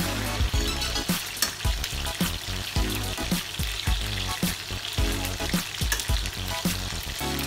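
Hot oil sizzling in a stainless steel frying pan while fried chicken pieces are moved with metal tongs, the tongs clicking against the pan and strainer. Background music with a steady beat runs underneath.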